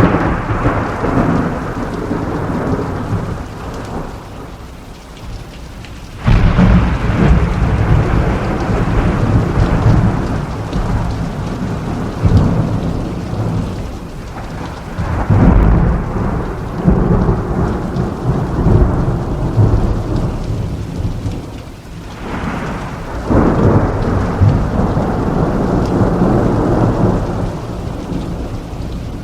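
Thunderstorm: steady rain with long rolls of thunder. A loud thunderclap breaks in suddenly about six seconds in, with more heavy rumbles around the middle and again a few seconds before the end.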